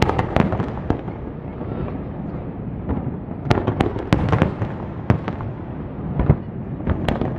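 Aerial fireworks shells bursting overhead: a steady low rumble with clusters of sharp pops and crackles, thickest from about three and a half to four and a half seconds in, and a heavy boom a little past six seconds.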